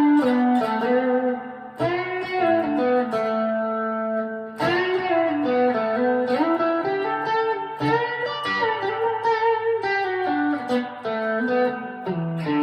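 Electric guitar through an amp on its bridge pickup, playing picked chords and single-note lines with string bends that slide notes up and back down.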